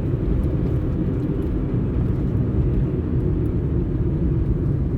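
Car engine and tyre rumble heard from inside the cabin of a moving car, a low, steady drone.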